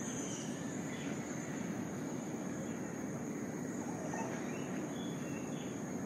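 Rainforest ambience: a steady high-pitched insect drone with a few short bird chirps, over a steady low rumble.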